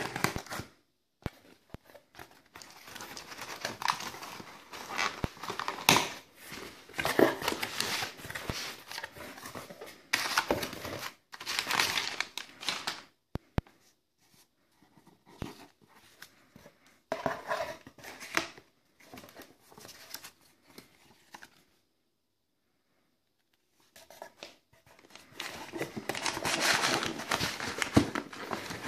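A cardboard shipping box and its paper contents being opened and handled by hand: cardboard flaps, tape and paper flyers crinkling and rustling in irregular bursts, with a few sharp clicks. The handling pauses briefly about two-thirds of the way through.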